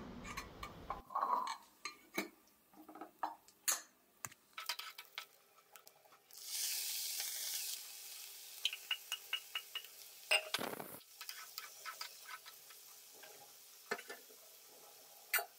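Drained, boiled broad beans hit a hot pan of fried onions and green chillies and sizzle for about a second and a half. A spatula then stirs the pan in a quick run of clicks and knocks, with scattered knocks before and after.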